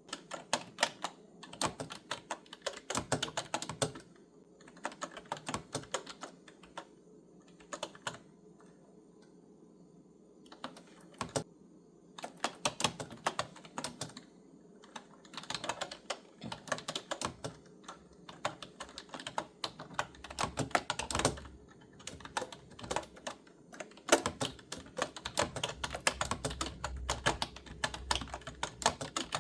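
Typing on a clicky retro-style keyboard: bursts of rapid keystrokes broken by short pauses.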